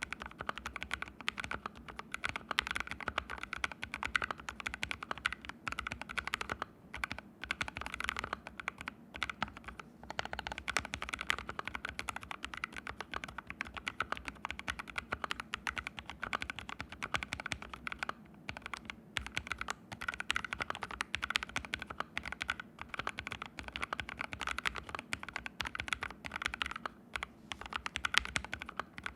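Continuous fast typing on an ABKO AR61 mechanical keyboard with fully lubed Haimu Sea Salt switches and no internal foam padding, keystrokes clacking in dense runs broken by a few brief pauses.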